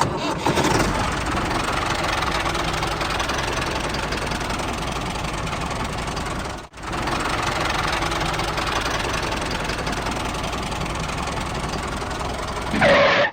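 A small machine running steadily, with a dense mechanical rattle over a low hum: the motor and mechanism of a DIY mini combine harvester at work. The sound cuts out for a moment about halfway through, then carries on.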